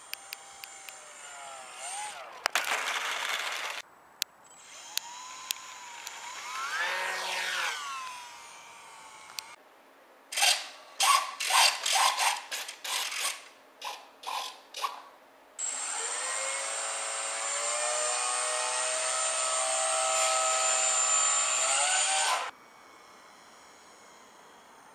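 Whine of a micro brushless electric motor and propeller on an E-flite UMX Gee Bee racer, in several snippets that cut in and out abruptly. The pitch slides up and down, then comes a run of about ten short bursts, then a long steady whine near the end.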